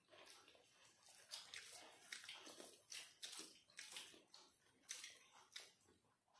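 Faint eating sounds: a string of soft, irregular wet smacks and clicks from chewing chicken curry and rice, and from fingers mixing rice and curry on steel plates.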